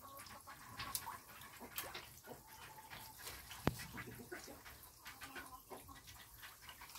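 Chickens clucking softly, with feeding catfish splashing and slapping at the pond surface. One sharp click sounds about three and a half seconds in.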